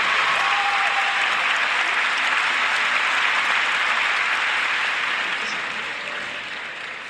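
Audience applauding after a live song, a dense even clapping that fades away over the last two seconds or so.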